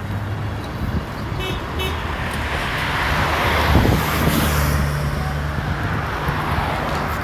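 Motor vehicle passing close by: a steady low engine hum under road noise that swells to a peak about four seconds in and then eases off.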